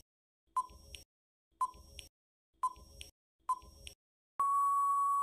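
Quiz countdown timer sound effect: four short ticks about a second apart, each with a brief ping, then one long steady beep of nearly a second near the end as time runs out.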